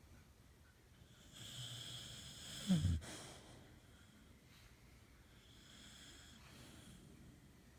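A beagle snoring in its sleep: a hissing breath about a second and a half in ends in one short, loud snore about three seconds in, followed by a quieter hissing breath near the end.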